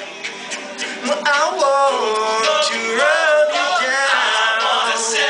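All-male a cappella group singing in close harmony, several voices holding and gliding between chords, with sharp percussive vocal clicks over them.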